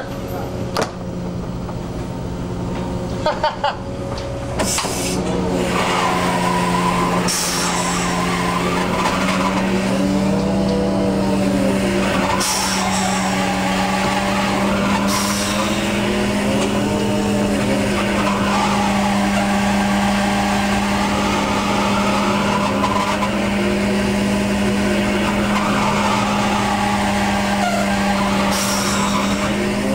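Hydraulic line hauler pulling in a string of sablefish traps: a steady mechanical hum that creeps up in pitch, with squealing tones that rise and fall over and over as the line runs through the block. A few sharp knocks in the first few seconds.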